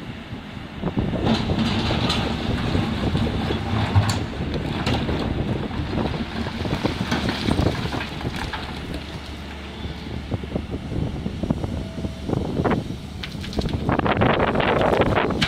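SANY SY210 hydraulic excavator's diesel engine running under load while its bucket digs into broken stone, with rocks knocking and clattering. It grows louder near the end as the loaded boom swings up.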